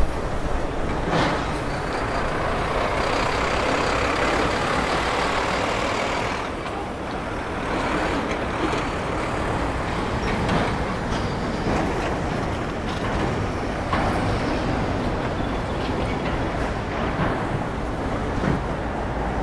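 Street traffic with a concrete mixer truck's engine running close by. The noise swells and turns hissier for a few seconds near the start.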